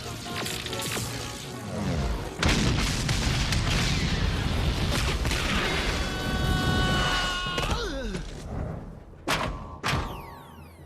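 Action-cartoon soundtrack: music under explosion sound effects, with a dense booming rumble from about two seconds in until about eight seconds, a few tones sliding down in pitch, then two sharp hits near the end.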